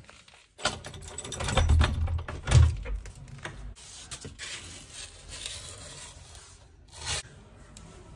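Rubber door sweep being handled and pushed into place along the bottom of a door, rubbing and scraping against the door and tile floor. There are two heavy thumps about two seconds in and another bump near the end.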